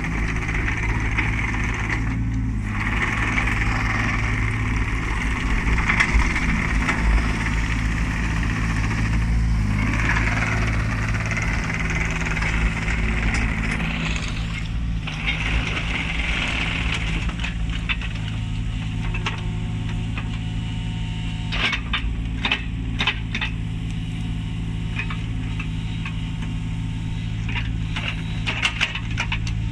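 Kubota U25 mini excavator's diesel engine running steadily while the boom and bucket are worked. A higher whine swells and falls away through the first half. In the second half there are several sharp knocks and clanks, most in two clusters.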